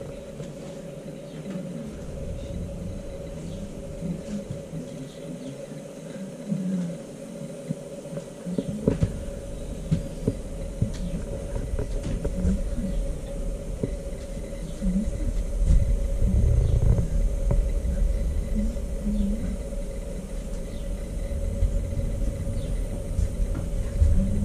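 A steady hum and low rumble from a waiting heritage train, with faint voices of people talking. The rumble grows louder about nine seconds in and again past the middle.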